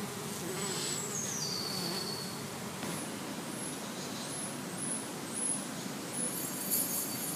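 Honeybees buzzing at the entrance of their hive, a steady hum.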